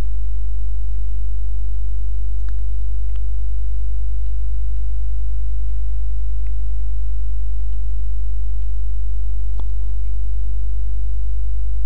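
Loud, steady electrical mains hum, a low buzz with a stack of even overtones, on the recording. A few faint mouse clicks come through it, two close together a few seconds in and one more near the end.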